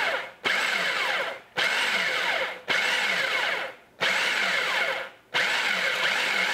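Cuisinart food processor pulsing, its blade spinning through Oreo crumbs and melted butter to mix them into a crust. The motor runs in bursts about a second long with a brief break between each, about six pulses in a row.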